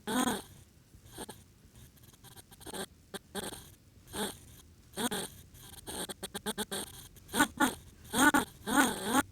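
A voice making short, odd animal-like vocal noises with no words, in choppy bursts with gaps between them, some with a wavering pitch and the longest near the end.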